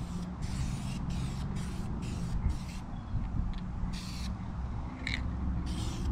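Aerosol spray can of vinyl dye fired in about eight short hissing bursts, most in the first three seconds and two more later, laying a light first tack coat onto a plastic door panel. A steady low hum runs underneath.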